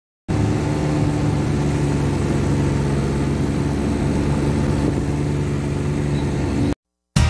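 Snowmobile engine running at a steady speed, heard from the seat while riding, a constant hum over a wash of noise. It cuts off abruptly near the end.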